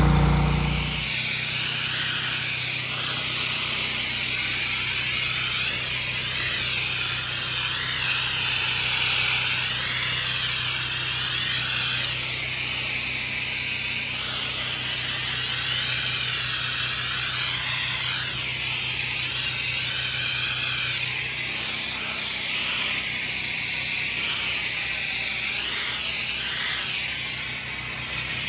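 Pressure washer spraying plain water onto concrete flat work: a steady hiss that wavers as the wand moves, over the constant hum of the machine's engine and pump.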